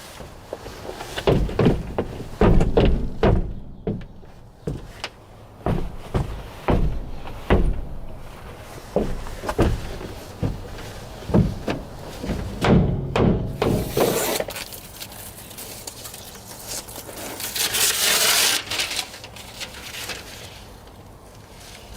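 Irregular knocks and thuds on wood, a dozen or more in the first part, then a few seconds of rushing, scraping noise that rises and falls: laminate flooring being fitted.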